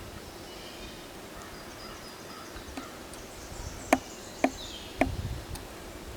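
Faint high chirps, with three sharp clicks about half a second apart a little past the middle, followed by a low rumble.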